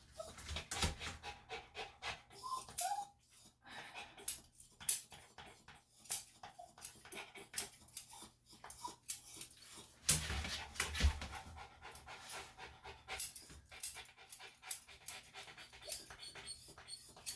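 Small senior Bichon–Shih Tzu mix panting, with a few short whines in the first few seconds, among many light clicks and rustles from being handled.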